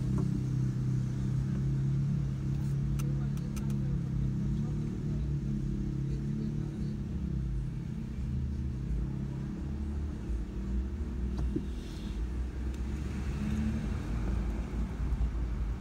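Car engine and road rumble heard from inside the cabin: a steady low idle hum while stopped, turning into a broader low rumble as the car drives off a little past halfway. A few light clicks about three seconds in.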